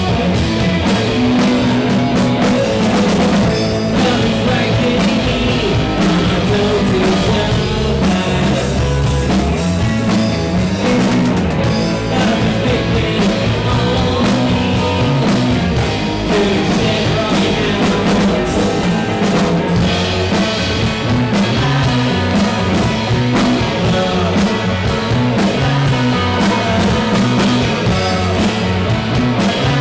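Three-piece rock band playing live: electric guitar, electric bass and drum kit, with a male voice singing over them for part of the time.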